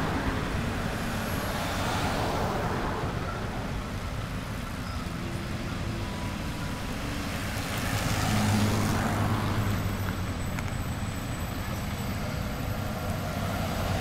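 Road traffic, with cars and trucks driving past. A louder vehicle with a low engine drone passes about eight seconds in.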